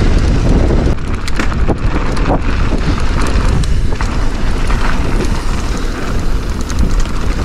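Mountain bike descending a loose, gravelly trail: wind noise buffeting the microphone over the rumble of tyres on the dirt, with a few sharp clicks and knocks from the bike rattling over bumps.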